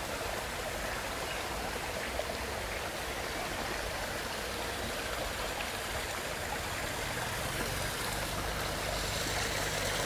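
Steady sound of running water from a small man-made garden stream trickling over stones into a pond.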